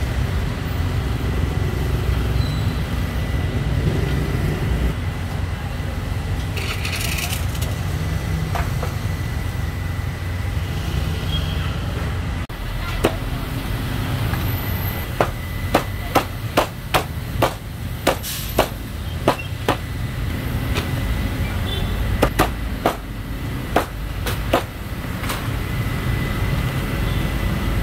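Meat cleaver chopping through roast poultry on a cutting board: a quick run of sharp chops in the second half, over a steady low street hum.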